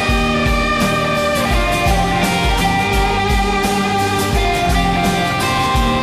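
A live rock band playing through a festival PA: electric guitars and bass over a steady drum beat, with the kick drum about twice a second.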